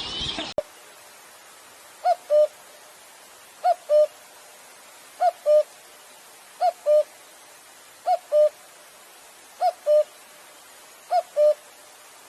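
A bird repeating a two-note hooting call, a short higher note followed by a slightly lower, longer one, about every one and a half seconds, seven times over a quiet hiss. At the start, a dense chorus of chirping birds cuts off suddenly.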